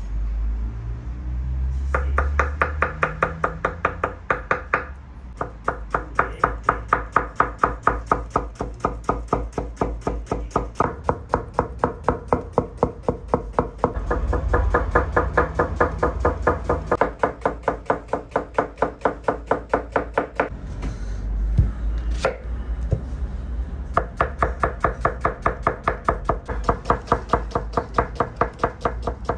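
Kitchen knife chopping peeled onions on a wooden cutting board: quick, even strokes of the blade through the onion onto the wood, with a few short pauses.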